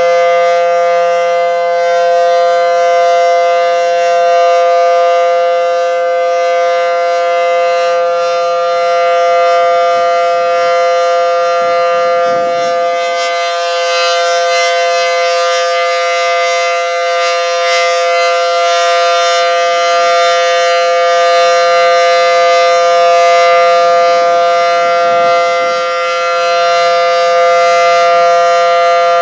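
Federal Signal SD10 dual-tone rotating outdoor warning siren sounding a steady alert during a test, holding two steady tones at a constant pitch.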